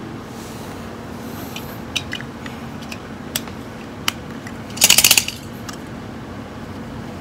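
Hard plastic toy pieces clicking and rattling as they are handled: a few separate clicks, then a quick rattle of about eight sharp clicks near the middle.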